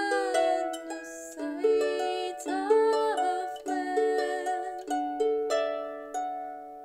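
Lever harp plucked in a slow melody, each note ringing and fading. A wordless vocal line glides between pitches above it, most plainly around three seconds in. The notes die away toward the end.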